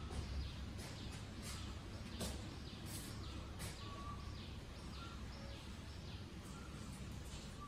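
Steady low background rumble with faint, short bird chirps now and then.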